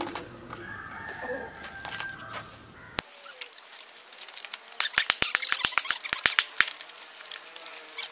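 A rooster crows once, long and drawn out, in the first couple of seconds. Later comes a quick run of about a dozen sharp cracks within two seconds: dry sticks snapping and knocking as firewood is laid for a fire.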